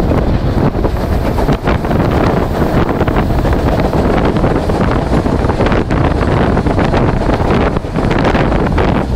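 Loud wind buffeting the microphone aboard a moving passenger train, over the train's steady running noise.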